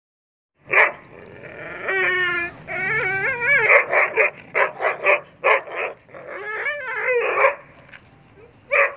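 A large dog barking and whining. One sharp bark, then wavering high whines mixed with a quick run of short barks, and another bark near the end.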